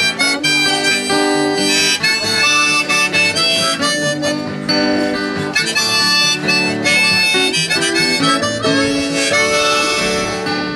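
Harmonica playing a melody over acoustic guitar accompaniment: an instrumental break between the sung verses of a song.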